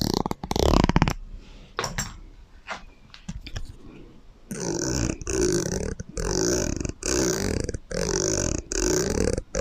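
Sounds played through an echo effect: a loud burp-like sound about a second long at the start, scattered soft clicks, then from about halfway a run of about eight short, evenly repeated sounds.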